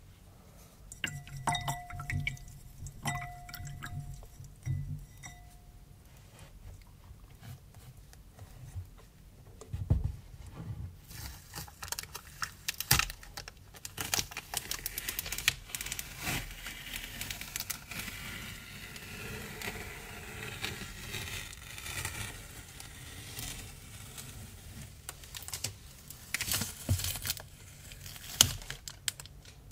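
Close-miked ASMR handling sounds on painted cardboard. A few light taps ring with a clear tone in the first few seconds, then a long stretch of scratchy rustling and clicking follows. Near the end a black knit glove rubs over the surface of the painting.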